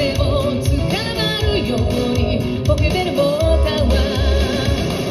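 Live pop song: a woman singing with vibrato over a steady band backing with guitar.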